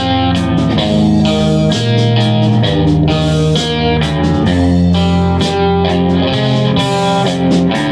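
A live band playing an instrumental passage, led by electric guitar over a moving bass line, with no singing.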